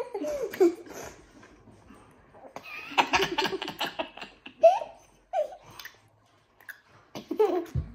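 Young children giggling and laughing, with the loudest burst of laughter about three seconds in and a few short vocal sounds after.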